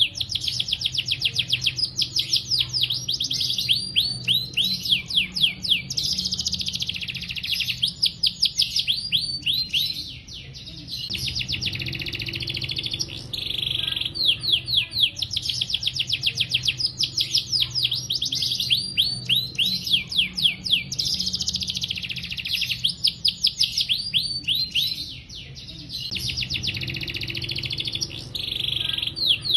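Domestic canary singing a long, near-continuous song of rapid rolling trills made of fast repeated sweeping notes, broken only by brief pauses about ten seconds and twenty-five seconds in.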